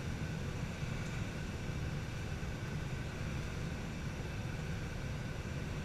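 Steady rush of airflow over a glider's canopy in gliding flight, heard from inside the cockpit.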